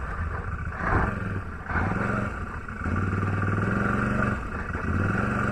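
Quad (ATV) engine running under changing throttle while wading through a muddy, water-filled track, its pitch dropping and rising several times as the rider eases off and opens up again, with a short noisy burst about a second in.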